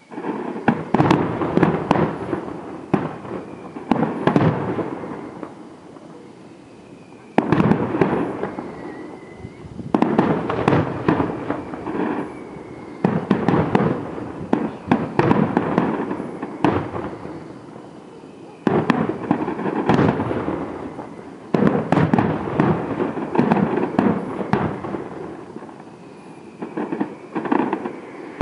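Aerial firework shells bursting in a display: rapid volleys of bangs and crackling that come in waves, each surge starting suddenly and dying away over a few seconds.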